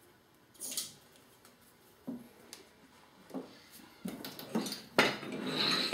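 A hydraulic toe jack being worked to let a heavy machine back down onto its skates: scattered clicks and metal knocks, a sharp click about a second in and more of them in the last two seconds, with a brief hiss near the end.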